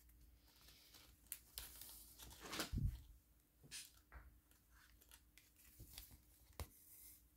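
Faint handling of craft materials at a table: a rasping, tearing-like rustle that swells over about a second and ends in a soft knock about three seconds in, with a few light clicks before and after.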